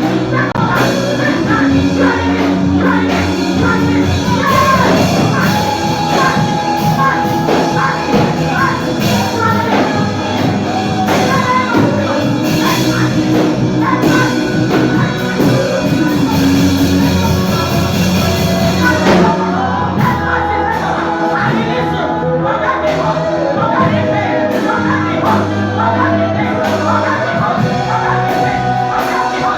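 Loud music with singing over a full band with drums, continuous throughout.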